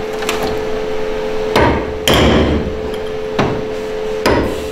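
Sledgehammer blows on a steel pipe held as a drift in a car's engine bay, knocking things into place so the intake manifold will fit. About four sharp metallic strikes, roughly a second apart, the loudest about two seconds in, over a steady hum.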